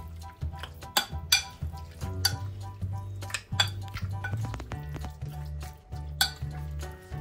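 Background music with a steady bass line, over hands tossing marinated chicken cubes in a glass bowl, with irregular sharp clicks and knocks against the glass, the loudest about a second in and again near the end.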